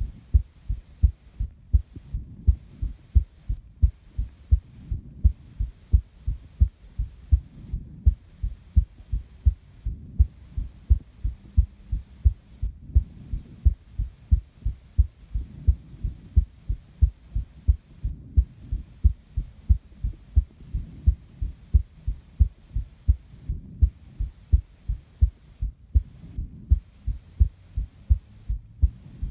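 Human heartbeat: steady, regular low thumps, one after another. Slow breathing swells softly behind it.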